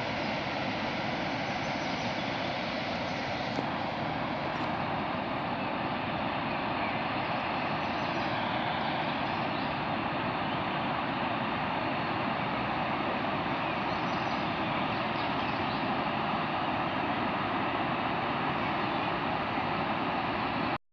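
A steady, even rushing noise with no rhythm or pitch, which cuts off abruptly at the very end.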